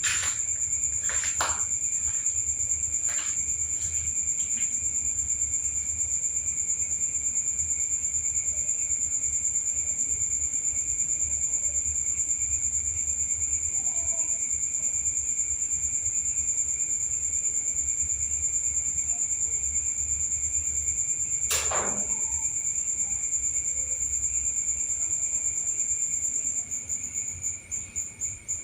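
Crickets chirring in a continuous high-pitched trill that breaks into a pulsing trill near the end. A few faint knocks come in the first few seconds, and one sharp, quickly falling sound about two-thirds of the way through.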